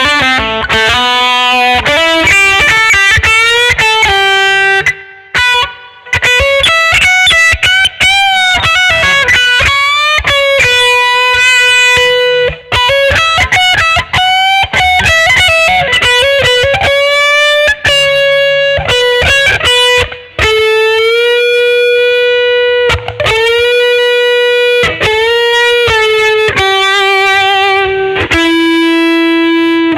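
Schecter Omen 6 electric guitar played through an effects patch: a single-note melody of held notes, some bent in pitch, with two short breaks between phrases.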